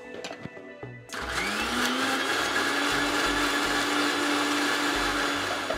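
An electric mixer grinder with a stainless steel jar grinds a wet masala paste smooth. It starts about a second in with a rising whine as the motor spins up, runs steadily for about four and a half seconds, and stops near the end.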